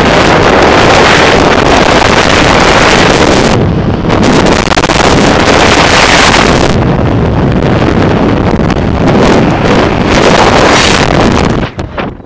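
Freefall airflow buffeting a skydiver's helmet-camera microphone: a loud, steady wind roar that drops away sharply near the end as the fall slows.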